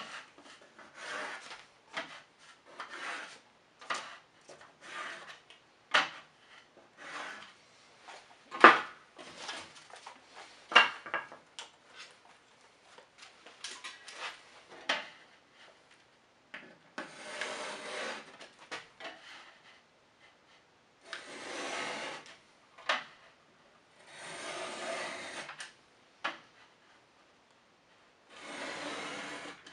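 Metal drywall knife scraping and scoring the face paper off a drywall sheet around a cut hole: irregular short scrapes with a few sharp ticks, then several longer scrapes of about a second and a half each in the second half.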